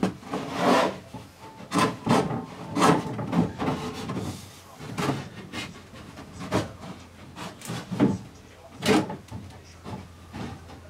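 A long wooden strip knocking and scraping against the top edge of a plywood canoe hull as it is shifted into place: irregular wooden knocks and rubs, a dozen or so, some sharp.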